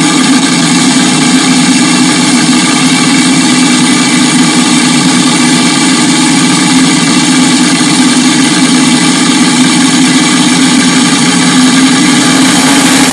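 Racing car engine running at steady revs: a loud, constant drone that holds one even pitch.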